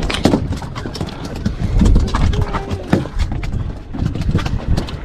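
Irregular clicks and knocks over a steady low rumble.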